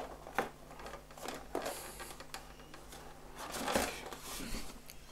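Hands handling and fitting parts on an EPO foam RC delta-wing airframe on a tabletop: a few light taps and scrapes of foam and plastic, the loudest a little before the end.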